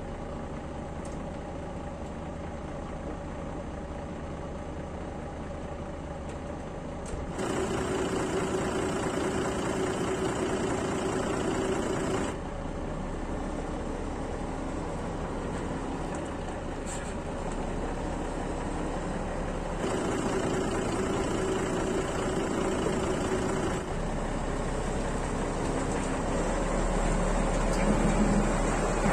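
Semi-truck tractor's diesel engine idling steadily as the truck creeps backward under a trailer to hook up. The sound changes level abruptly several times, as if cut between takes.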